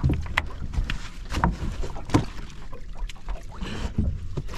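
A wet fish trap being hauled up beside a boat: irregular knocks, clatter and splashing, over wind rumble on the microphone.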